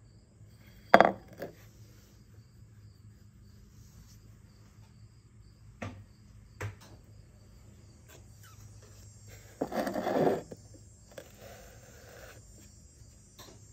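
Hard clicks and knocks of a clay coaster being handled on a wooden tabletop, the sharpest about a second in, then about a second of rubbing as a sponge wipes around its rim.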